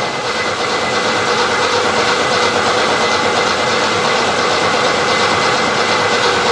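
1969 Chevrolet Opala engine running just after catching on starting-fluid spray: a steady, loud running sound with a constant whine through it.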